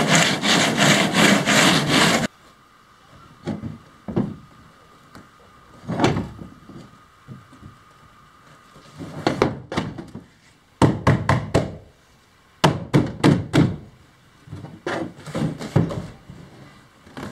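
Coarse 36-grit sandpaper rubbed by hand along a fiberglass edge in quick, even strokes, stopping suddenly about two seconds in. After that come scattered thunks and knocks, in short clusters, as a large fiberglass kayak shell is lifted and shifted.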